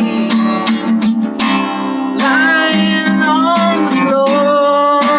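Rock music: strummed acoustic guitar chords with a gliding, bending melody line over them and a long held note near the end.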